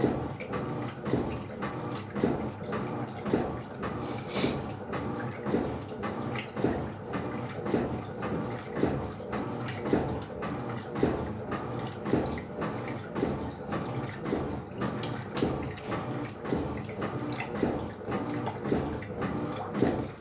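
Electrolux LF75 top-load washing machine agitating a load of clothes in water: a steady rhythmic sloshing, about two strokes a second, that stops suddenly at the very end as the agitation pauses.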